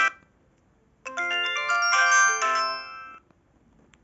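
Built-in preset ringtone of a Samsung mobile phone played through the phone's small speaker: a short polyphonic melody of several notes sounding together, starting about a second in and fading out after about two seconds.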